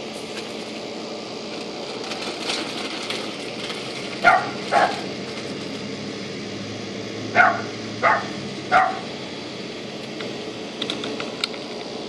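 A dog barking in short single barks: two close together about four seconds in, then three more a few seconds later.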